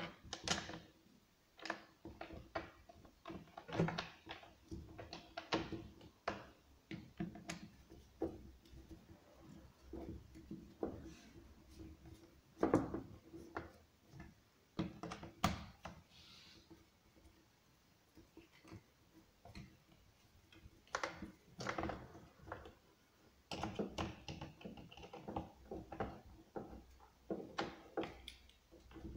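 Irregular clicks, taps and knocks of hands and a hand tool working on a Husqvarna 236 chainsaw's plastic housing and top handle, with a quieter stretch about halfway through.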